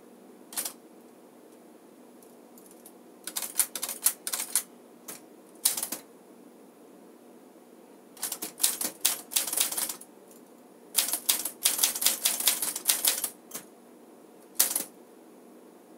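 1956 Smith-Corona Silent Super manual portable typewriter being typed on, a model built for quiet typing: quick runs of key strikes in bursts, with short pauses between the runs.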